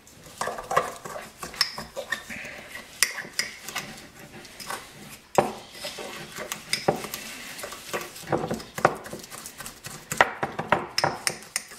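A metal utensil stirring a thick, sticky paste of brown sugar and maple syrup in a small ceramic bowl, with irregular clinks and scrapes against the bowl's sides.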